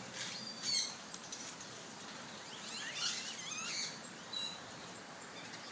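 Parrot chirping: a short high call about a second in, then a cluster of quick chirps gliding up and down around the middle, and a brief high whistle near the end.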